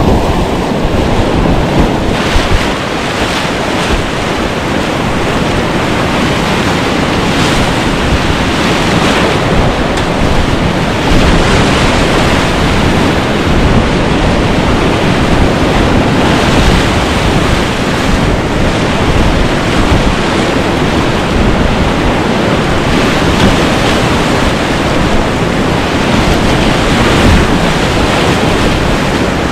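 Whitewater rapids rushing loudly and steadily around a kayak running through them, heard close to the water.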